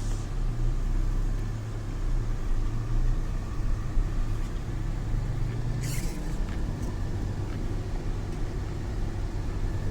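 Steady low rumble of a motor vehicle running, with a brief hiss about six seconds in.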